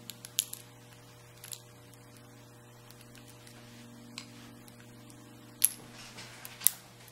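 Steel tweezers clicking against a brass lock cylinder and its small pins while the driver pins are picked out: a quick run of four ticks at the start, a few scattered ones, then two sharp, loud clicks near the end.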